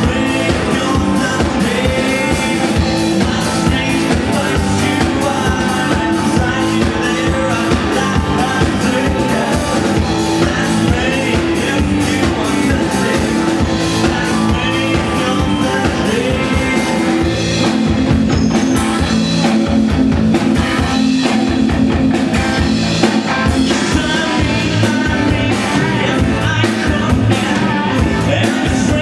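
Rock song with singing over guitar and a steady drum-kit beat.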